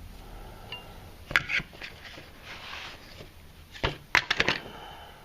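Kitchen knives in hard plastic sheaths being handled and laid down. A couple of sharp clacks come about a second in, then a scraping rustle, then a quick clatter of several knocks near the end.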